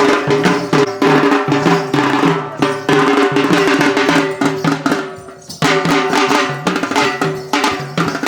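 Drum-led music with a fast, steady beat of strikes over held instrument notes. It thins out briefly about five seconds in and comes back in full just before six seconds.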